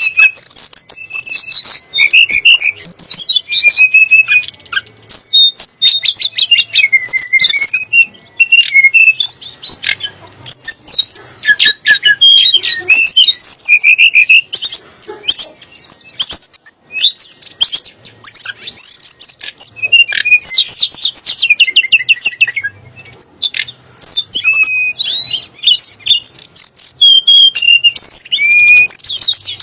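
Tledekan gunung songbird singing a continuous, varied song of clear whistles, sliding notes and rapid trills and chatters, with only brief pauses.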